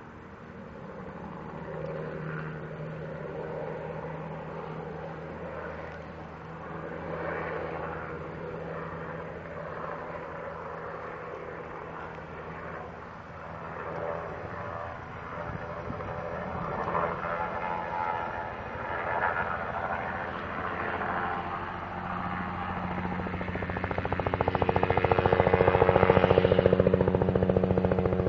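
Helicopter running, its rotor giving a steady fast beat over the engine hum, growing louder toward the end.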